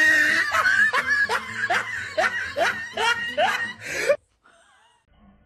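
A person laughing hard in quick, high-pitched bursts, about two or three a second, that cut off abruptly about four seconds in.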